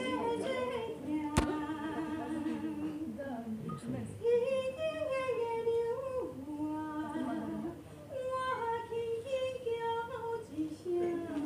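A woman singing a slow melody unaccompanied, holding long notes that step up and down in pitch, with short pauses between phrases. A single sharp click comes about a second and a half in.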